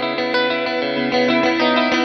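Electric guitar parts playing back from a multitrack mix, with effects and some distortion. About a second in the sound gets louder and fuller as a low part comes in.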